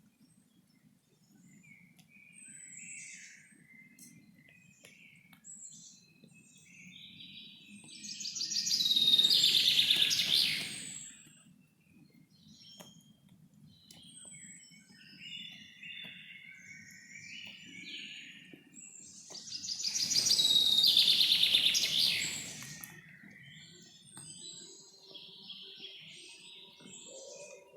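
Wild birds singing and chirping, with two loud bursts of rapid, high trilling song about 8 and 20 seconds in, over a low, steady rumble of background noise.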